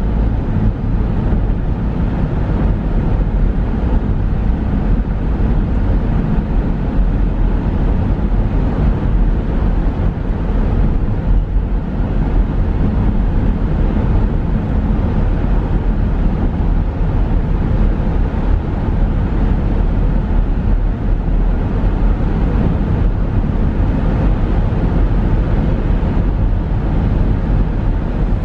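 Steady road noise of a car driving at highway speed through a road tunnel: an even rumble of tyres and engine, heaviest in the low end, with no let-up.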